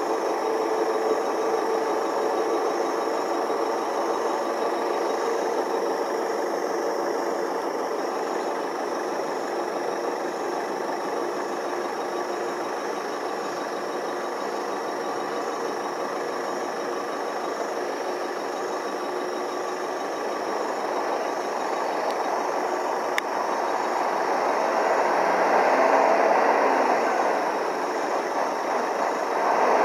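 Heavy trucks' diesel engines running at idle and low speed, a steady drone that swells louder about three quarters of the way through as the trucks move up close.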